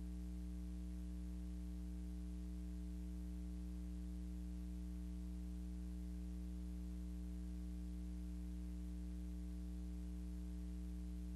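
Steady low electrical hum with a faint hiss behind it, unchanging throughout; no other sound.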